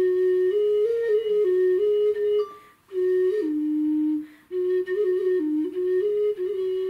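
Clay ocarina played solo: a pure, flute-like tune of stepped notes in a low-middle register, with two short breaks partway through.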